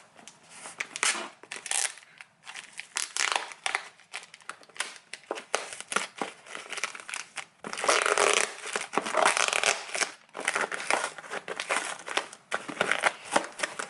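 Packaging being torn and unwrapped by hand: irregular crinkling, rustling and tearing of paper and plastic as a mailed parcel of matcha is opened, busiest about eight to ten seconds in.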